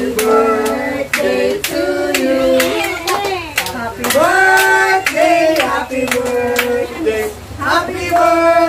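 A group of adults and children singing a song together, clapping along with their hands.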